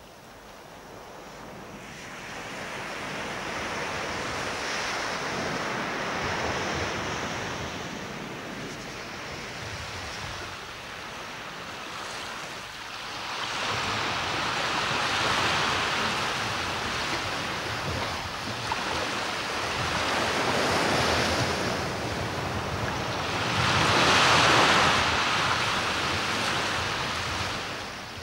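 Sea waves breaking and washing in, the noise swelling and falling back every several seconds, loudest near the end.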